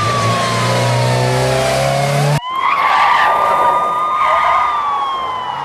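A police siren wailing: its pitch falls slowly, cuts off abruptly about two and a half seconds in, rises sharply, holds, and falls again near the end. Under it are the skidding tyres and engines of drifting cars.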